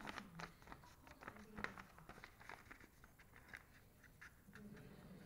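Near silence with faint, irregular small clicks and taps: fingers tapping a smartphone's touchscreen while typing a password.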